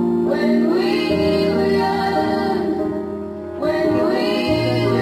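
Background music with a singing voice over sustained instrumental notes.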